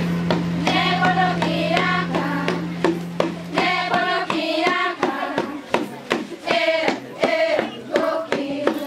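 Music: voices singing a melody over sharp, repeated percussive strikes. A low steady drone underneath stops about four seconds in.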